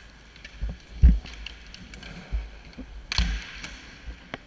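Dull thumps and sharp clicks of sled hockey gear on the ice: sticks tapping and sleds shifting, with knocks on the head-mounted camera. The loudest thump comes about a second in, and a short scrape follows about three seconds in.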